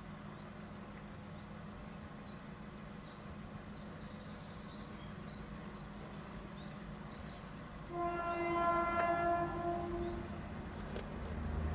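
A train's horn sounds one long warning blast of about two and a half seconds as the train approaches the level crossing at speed, sounded because a Network Rail van is at the crossing. Near the end the low rumble of the oncoming train begins to rise.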